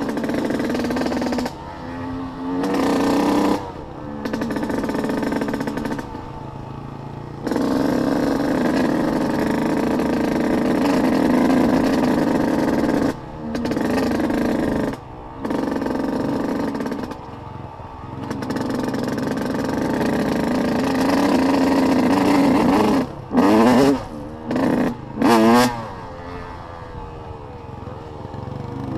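Dirt bike engine riding over rough ground, the throttle repeatedly opened and shut so the engine swells and drops back every few seconds. There are several quick sharp revs about four-fifths of the way through.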